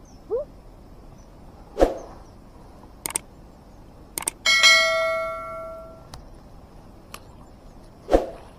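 Subscribe-button animation sound effect: a mouse click about four seconds in, followed by a bell ding that rings out for about a second and a half. A few sharp knocks around two and three seconds in and near the end.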